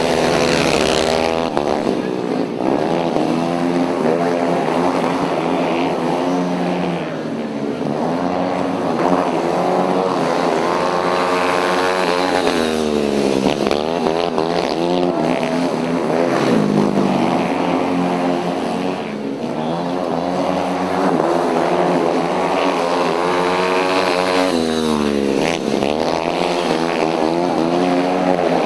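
Several speedway motorcycles racing, their single-cylinder engines running at high revs. The engine notes keep rising and falling in pitch, with deep dips every few seconds as the bikes back off and rev up again.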